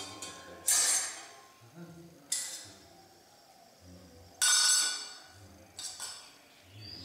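Sharp metallic clashes that each ring briefly, four strong ones a second or two apart, the third the loudest and longest. Low voices murmur underneath.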